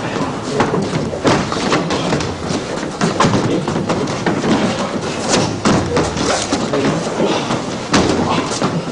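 Many irregular thuds and scuffs from several pairs sparring at once: feet stamping and shuffling on the floor, with kicks, strikes and grabs landing on bodies, one after another without a break.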